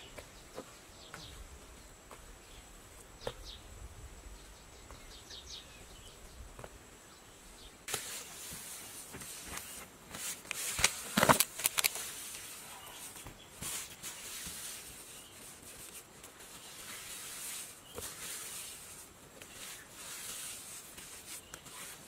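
Quiet outdoor ambience with a few faint chirps, then, from about eight seconds in, a bare hand pressing and smoothing wet cement mortar: a gritty scraping hiss with scattered short knocks, loudest about three seconds later.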